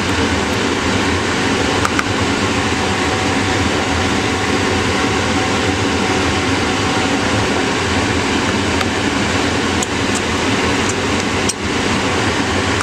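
Steady, loud fan-like hum and hiss, with a few light clicks as a small screwdriver takes screws out of a hard drive's case, about two seconds in and again near the end.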